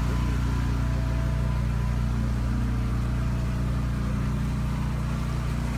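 An engine idling steadily, a low, even rumble that holds its pitch without revving.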